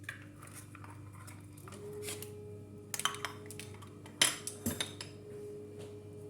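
Kitchen dishes and utensils knocking and clinking, a scatter of sharp knocks with the loudest about four seconds in, as cake ingredients go into a mixing bowl.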